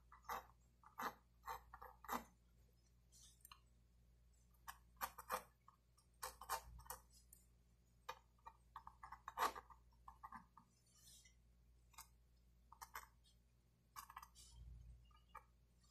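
Mechanical pencil lead scratching on drawing paper in short, irregular sketching strokes, some in quick clusters; faint.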